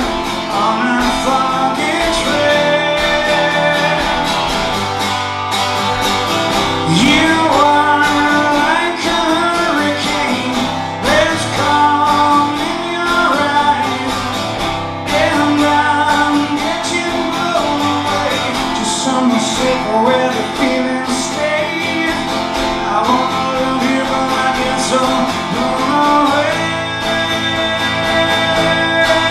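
A live band playing an instrumental break, with a lead guitar bending and sliding its notes over the rest of the band.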